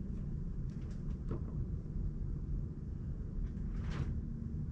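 Steady low rumble of background noise, with a few faint clicks and rubs from hands setting a battery cell in a small bench vise.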